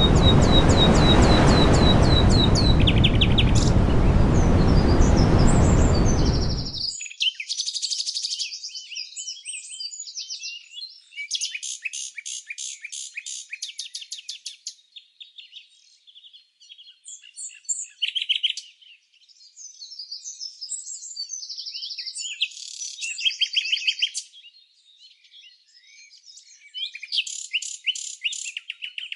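Songbirds singing: rapid trills and quick chirping phrases, some fast and buzzy. A steady rushing background noise under them cuts off suddenly about seven seconds in, after which the song is heard alone in short bursts with brief pauses.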